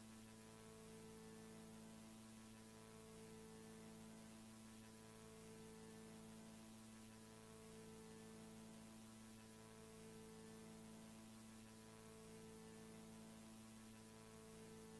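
Faint synthesized electronic drone: a steady hum of several stacked tones over light hiss, with some of the tones fading out and back in every few seconds.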